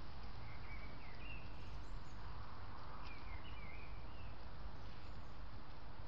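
Steady hiss from a trail camera's microphone, with a few faint short warbling chirps about half a second in and again around three seconds in.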